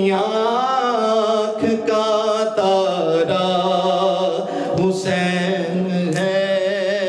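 Male reciter singing an Urdu manqabat in praise of Imam Hussain into a microphone, drawing out long, wavering melismatic notes.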